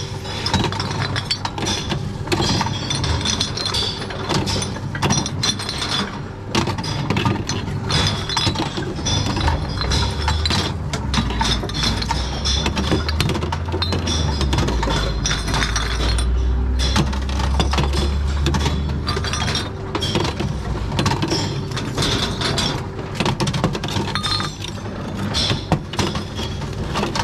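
Glass bottles clinking against each other as they are fed one after another into a reverse vending machine, with the machine's mechanism taking them in. A low hum runs from about ten seconds in to about twenty.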